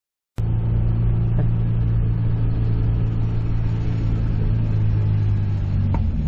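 Honda S2000's JDM F20C four-cylinder engine pulling at a steady speed on the road, heard from inside the car. The note holds an even pitch and eases slightly near the end, after a brief moment of dead silence at the start.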